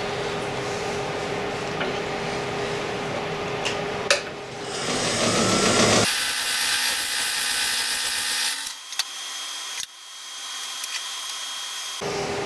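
Wood lathe spinning a small African walnut spindle: a steady hum with a held tone at first. From about four seconds in comes a louder, hissing cut as a spindle gouge shapes the wood. The sound changes abruptly a few times before the steady lathe hum returns near the end.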